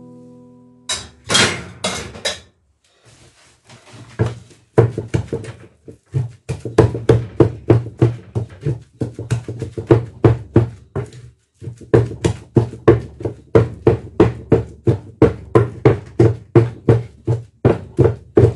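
A wooden pestle thudding into boiled yam in a wooden mortar, in steady strokes about two to three a second with a brief pause now and then. The yam is being mashed, the stage before the real pounding.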